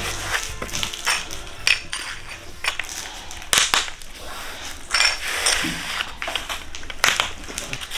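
Irregular sharp clicks, clinks and knocks of hard objects being handled during porcelain floor-tile laying, about a dozen over the span, with louder knocks near the middle and toward the end.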